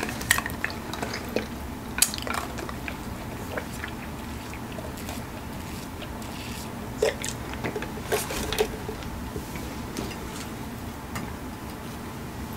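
Close-miked eating sounds: chewing and lip smacks with scattered small clicks, and a sip through a straw from a tumbler partway through.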